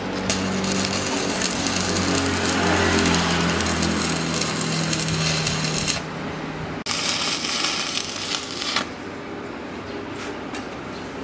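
Stick (arc) welding on a steel frame: the arc crackles and hisses loudly in two runs separated by a short break, with a low steady hum under the first run. It stops about nine seconds in, leaving a quieter hiss and faint ticks.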